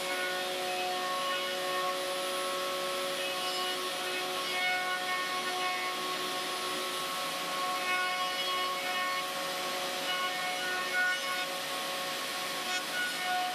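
Table-mounted router running steadily, its bit chamfering the edges of a curved beech apron as it is fed around by hand. A steady whine of several tones over the cutting hiss, with small swells as the wood meets the bit.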